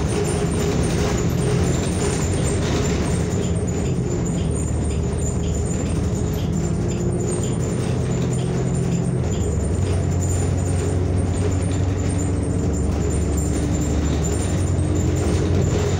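Inside a New Flyer XN40 city bus under way: a steady drone of engine, drivetrain and road noise, with a few faint held whining tones. The low hum shifts to a new pitch about nine seconds in.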